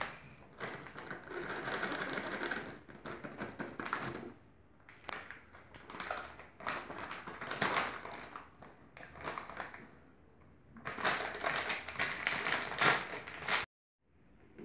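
Crinkling plastic candy packaging and marshmallows tapping into a plastic blender jar as they are tipped in. The sound comes in several irregular bouts of crackle with quieter gaps.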